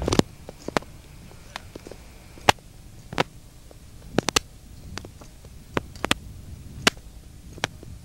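Irregular sharp clicks and knocks of scrambling over bare rock with a handheld camcorder: feet and hands on stone and the camera being handled, about a dozen in all, loudest about two and a half seconds in, over a low handling rumble.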